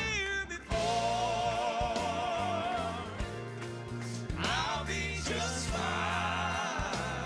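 Live southern gospel music: a male singer holds two long notes with heavy vibrato over a band with bass and electric guitar.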